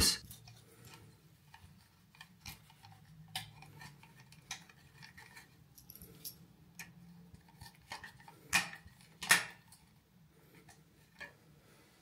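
Faint scattered clicks and light metallic ticks of a screwdriver working the screw terminals of a smart wall switch as the wires are fastened and the plastic switch body is handled, with two louder clicks about eight and a half and nine seconds in.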